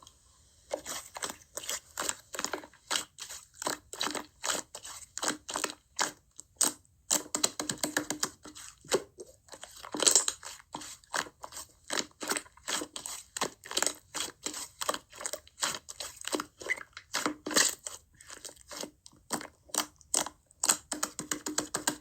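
Slime being squeezed and pressed by hand, giving an irregular run of sharp crackling pops and clicks, several a second.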